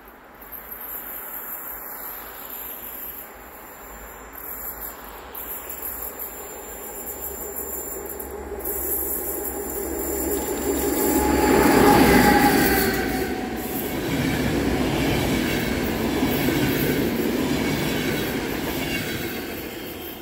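Romanian 060-EA six-axle electric locomotive (EA 334) passing with a train, growing louder to a peak about twelve seconds in, with high squealing tones from the wheels around the peak. The train's cars then keep rolling by steadily and ease off near the end.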